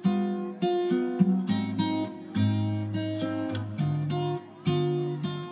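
Background music: an acoustic guitar playing strummed and plucked chords that change about every second.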